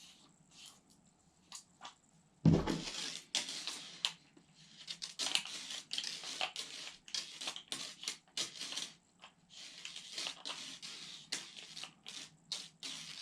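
Handling an Avatar airsoft gas grenade, its inner core being fitted and twisted into a rubber outer housing. A thud about two and a half seconds in, then repeated scraping and clicking.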